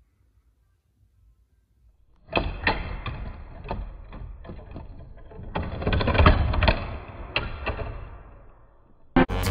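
A LEGO board bouncer running: the plastic brick board knocking and rattling as it bounces on its axle, a fast string of plastic clacks that starts about two seconds in, is loudest a little past the middle, and fades out near the end.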